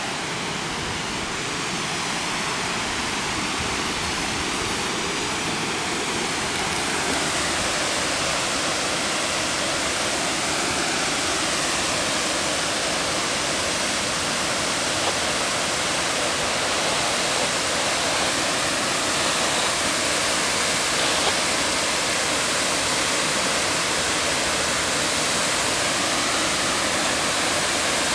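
Steady rush of river water spilling over a dam, a little louder after the first several seconds.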